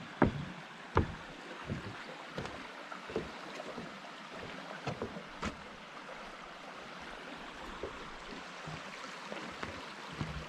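Steady rush of flowing brook water, with footsteps about once every three-quarters of a second during the first few seconds and a few more scattered later.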